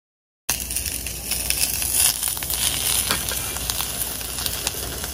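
A steady crackling hiss with many small pops, starting suddenly about half a second in after silence.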